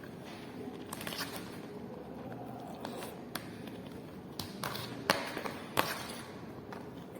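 Eating sounds: a scattering of light taps and clicks from utensils and food packaging being handled during a meal, the sharpest two about five and six seconds in.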